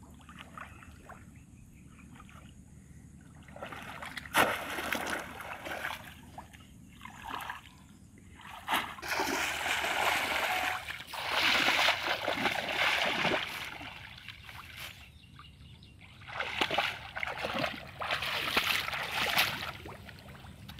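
Water splashing in shallow water in several loud bouts as a woven bamboo fish trap is plunged down and worked through it, after a few quieter seconds of wading.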